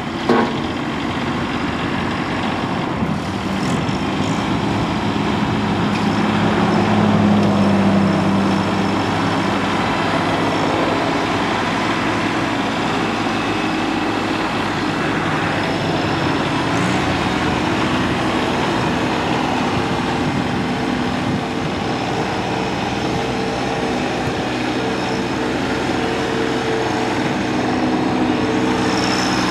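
2017 Mahindra eMax 25L tractor's three-cylinder diesel engine running steadily. It grows louder for a couple of seconds about six to eight seconds in.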